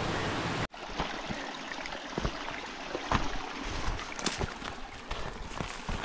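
Footsteps of a walker in boots on a gravelly, grassy track: irregular crunches and scuffs with vegetation brushing. A steady rushing noise cuts off abruptly less than a second in, just before the steps begin.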